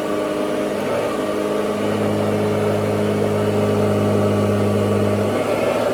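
1940s Hoover Model 28 vacuum cleaner running: a steady motor hum that grows stronger about two seconds in and eases shortly before the end.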